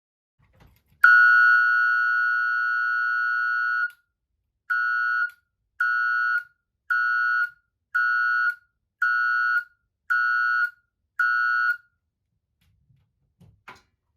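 Ademco 702 electronic siren sounding at full power: one steady high-pitched tone for about three seconds, then seven short beeps about a second apart, all at the same pitch. At full power it sounds as it should, not the weak sound it made on a 9-volt battery.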